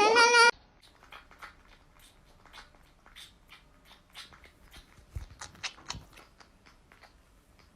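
A pet chewing and crunching on something: quiet, irregular little crunches and clicks, with a few louder ones about five to six seconds in. A snatch of sung music cuts off abruptly just after the start.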